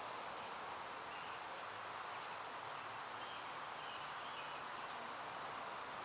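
Steady outdoor background hiss, with a few faint, short chirps now and then.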